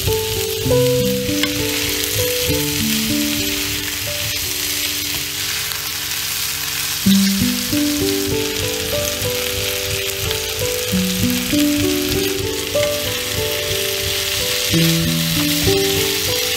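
Sliced onions, bell pepper strips and cherry tomatoes sizzling steadily as they fry in oil in a nonstick pan, under background music.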